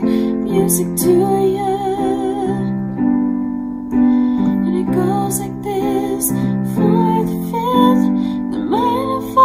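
A woman singing held notes with a wavering vibrato over piano chords.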